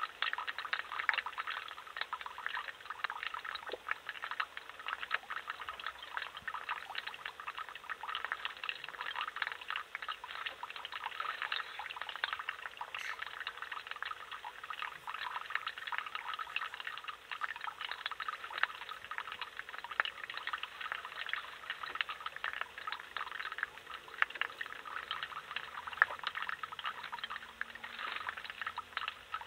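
Steady trickle and splash of running water, a dense crackling patter that goes on without a break.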